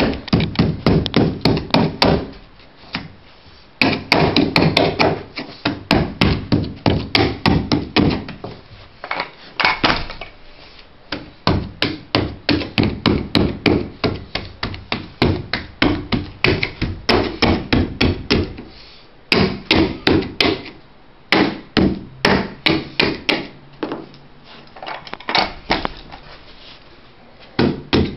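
Rapid runs of sharp taps, about five a second with short pauses between runs: a carpet stair tool being struck to tuck the carpet edge down at the baseboard.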